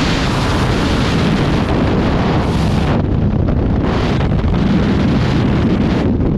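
Loud, steady rush of freefall wind buffeting a skydiver's camera microphone. The hiss thins out about three seconds in, comes back briefly about a second later, and thins again near the end.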